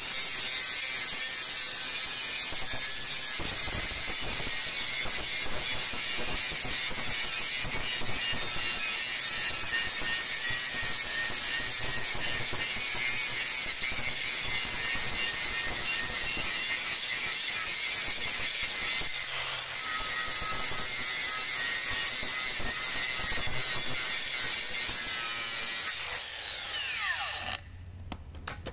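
Makita XGT GA005G 40V brushless cordless angle grinder grinding the face of a steel square tube, a steady grinding noise of the disc on the metal. Near the end it is switched off and its whine falls in pitch as the disc spins down.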